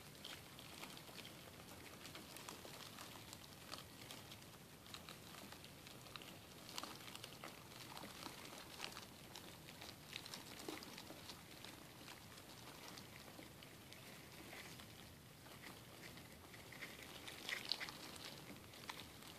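Dubia roaches crawling over cardboard egg flats and orange halves: faint, irregular scratchy ticks and rustling, with a brief louder cluster near the end.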